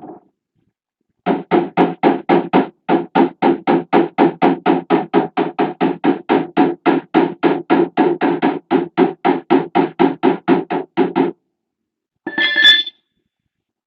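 Rapid, steady hammer taps on a sheet-metal panel, about four to five blows a second for some ten seconds with one short pause, each blow ringing slightly. The run ends, and a brief, sharper metallic clang follows near the end.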